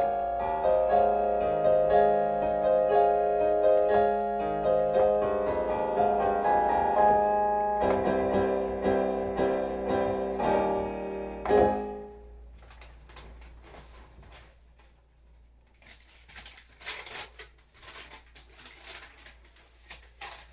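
Digital piano played with many overlapping notes, ending with a loud final chord about twelve seconds in and dying away. Then quiet paper rustling as sheet music is handled.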